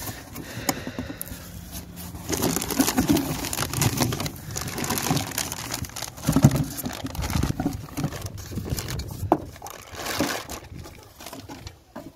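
Plastic wrapping crinkling and a cardboard box rustling as a new shock absorber is unwrapped and lifted out of its box, with irregular crackle and a few light knocks.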